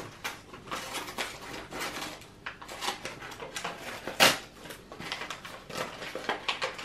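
Irregular crackling and rustling of packaging and paper as fan mail is handled, with one louder crackle about four seconds in.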